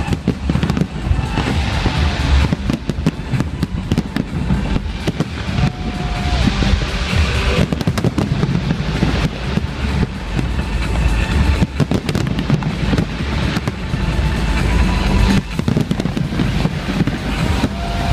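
A large fireworks display with many bangs in quick, overlapping succession over a heavy low rumble, with music playing alongside.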